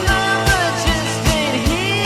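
1970s rock music with a steady drum beat, about two to three hits a second, under bending pitched lines of singing or lead guitar.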